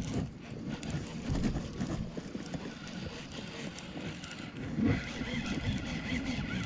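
Wind buffeting the microphone in uneven gusts, a low rumble that swells about five seconds in.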